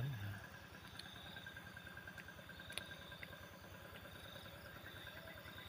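Insects chirping steadily at a low level, with a short voice-like sound right at the start and a faint click about three seconds in.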